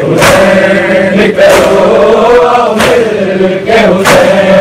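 A noha, a Shia lament, chanted by male voices on long held notes, with a sharp beat about every second and a quarter.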